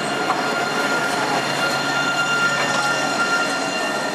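Alstom Citadis 302 tram passing close by, its wheels running on the rails in a steady rumble with a steady high whine over it and a few faint clicks.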